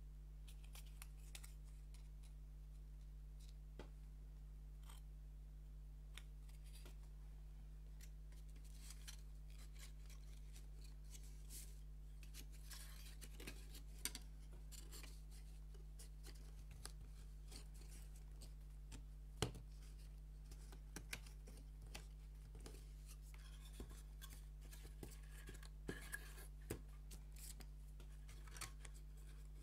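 Thin wooden puzzle pieces being handled and fitted together: faint scattered clicks, taps and scrapes, with a few sharper clicks, the loudest about two-thirds of the way in, over a steady low hum.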